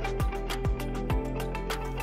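Background music with a steady bass-drum beat, about two beats a second, over held chords.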